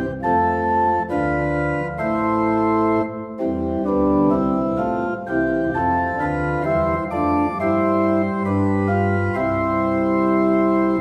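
Church organ playing a hymn in full, sustained chords that change about once a second.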